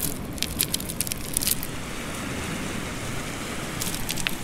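Beach pebbles clicking and knocking together as a hand picks a stone ammonite out from among them: several sharp clicks in the first second and a half, and a couple more near the end, over a steady rushing noise.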